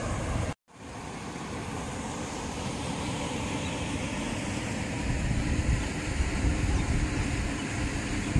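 Wind buffeting the microphone: a steady rumbling noise with gusts, cut off for a moment by an edit just over half a second in.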